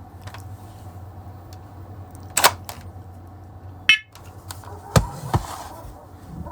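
Clicks from a First Alert smoke and carbon monoxide alarm being handled and its button pressed, with a short high electronic chirp from the alarm just under four seconds in, then another sharp click and a thud.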